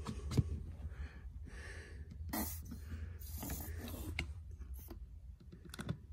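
Plastic squeeze bottle of paste polishing compound being squeezed out onto a foam polishing pad: a few short hissing squirts and small handling clicks over a low steady hum.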